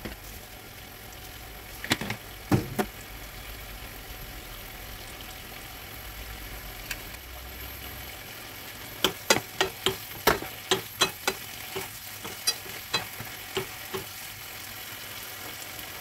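Sliced courgette, onion and carrot sizzling steadily in a frying pan. A few sharp clicks come about two seconds in, and a run of quick clicks and taps follows from about nine to fourteen seconds.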